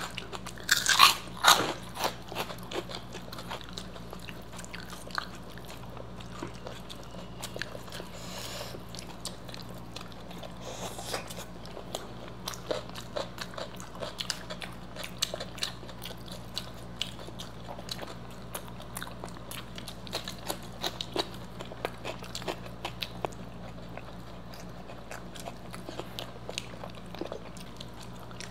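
Close-miked eating of crunchy fried snacks: a few loud crunching bites about a second in, then steady chewing with small crunches and mouth clicks. A faint steady hum runs underneath.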